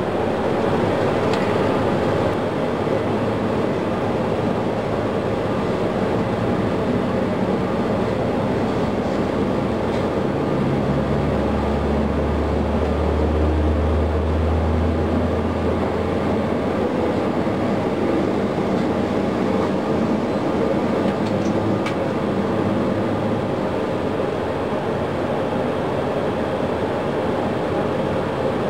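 Boeing 737 turbofan engine turning over on its air starter during a ground start, a steady rushing rumble as the engine spools up. A deeper hum swells for a few seconds in the middle.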